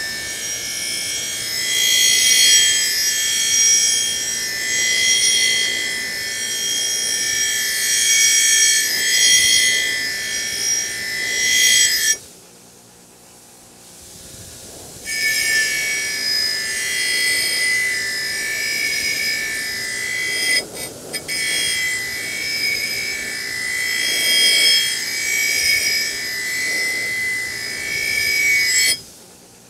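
Bench grinder's wire wheel scrubbing rust off a steel double-bit axe head, a steady high-pitched rasp. It stops for about three seconds near the middle, breaks off briefly again later, and cuts off just before the end.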